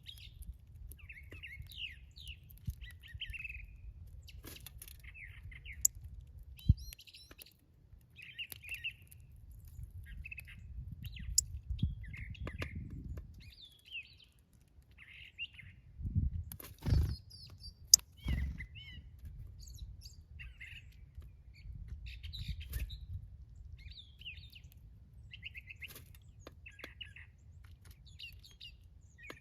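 Small backyard birds chirping in short, repeated bursts over a low rumble, with a few sharp knocks a little past halfway.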